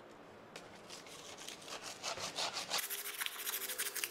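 Razor-blade scraper scraping dried white residue off a black granite countertop in quick repeated strokes. It starts faintly about half a second in and grows louder from about three seconds in.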